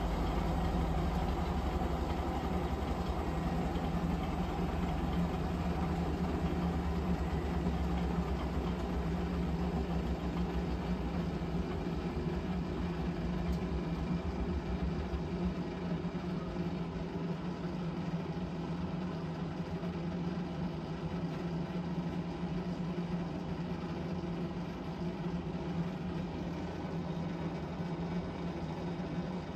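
Profilo Premium-9 front-loading washing machine in its final spin with an unbalanced load: a steady motor hum over a deep drum rumble. The rumble fades about halfway through and the sound slowly gets quieter as the drum slows.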